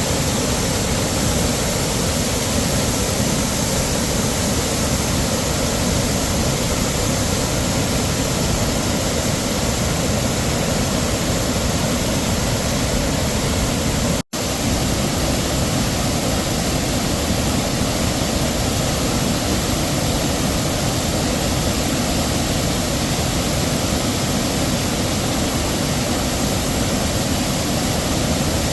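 Heavy waterfall, a steady dense rush of falling water with no let-up, broken once about halfway by a split-second gap of silence.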